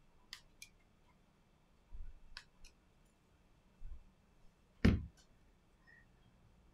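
Small clicks and taps of a Redmi Note 9 Pro's plastic frame and replacement screen assembly being handled, with one louder knock about five seconds in.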